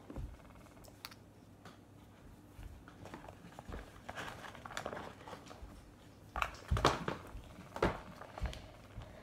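Paper gift bag rustling and crinkling as small plastic bottles and tubes of glitter glue and food colouring are put into it, with scattered light knocks and clicks, a few louder ones late on.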